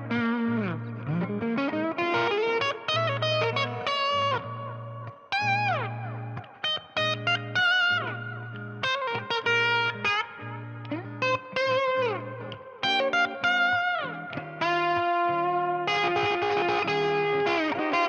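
Maybach Lester 59 Les Paul-style electric guitar played through a Milkman Half Pint 5-watt amp and a ZVex Box of Rock distortion pedal. It plays a single-note lead line with string bends and vibrato on the held notes.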